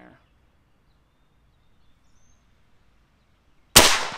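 A Seneca Dragon Claw .50 caliber PCP air rifle fires a single shot near the end: one sharp, loud report with a short fading tail.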